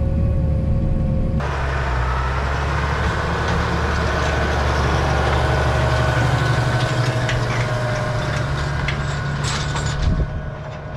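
Massey Ferguson tractor engine running steadily as heard inside the cab. About a second and a half in it changes abruptly to the tractor heard from outside as it drives past pulling a wheeled harrow over dry tilled soil: an engine drone under a broad rushing noise, which drops off near the end as the tractor moves away.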